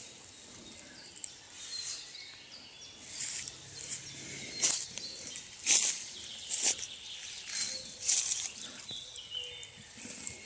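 Footsteps rustling and crunching through dry fallen leaves on the forest floor, about one step a second.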